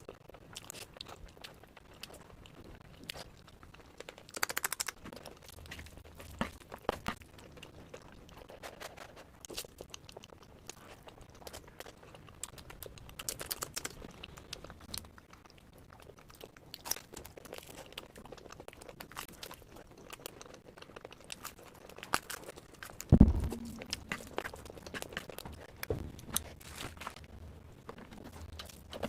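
Close-miked eating sounds: crunching and chewing with crinkling and scattered sharp clicks. There is one loud low thump about 23 seconds in.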